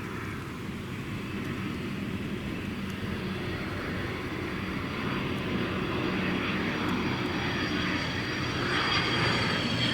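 Cessna 525 CitationJet CJ1 business jet on its landing approach, its twin turbofan engines running with a high whine over a rushing roar, growing steadily louder as it comes nearer.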